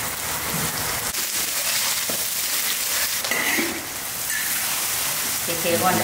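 Food frying in a large wok, a steady hiss. A voice starts near the end.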